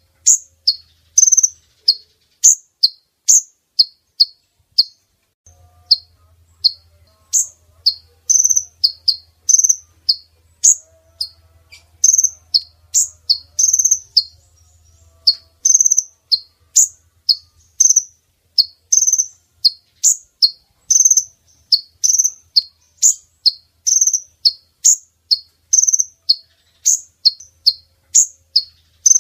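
Recorded call of a female kolibri ninja (olive-backed sunbird) played as a lure for males: a steady, unbroken series of short, high, sharp chirps, about two a second.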